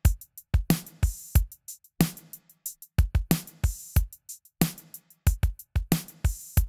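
Drum track playing back: kick drum, snare and cymbals in a steady groove, heard through a Pultec-style EQ plugin (Acustica Audio PUN).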